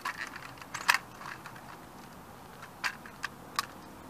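A model Ferrari car's body cracking and crunching as a sneaker sole presses down on its roof. There is a burst of snapping in the first second and a half, loudest about a second in, then three separate sharp cracks about three seconds in as the roof gives way.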